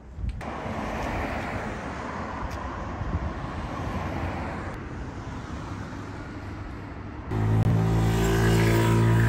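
Vehicle driving noise: a steady rush of road and engine sound. Near the end it cuts abruptly to a louder, steady low hum.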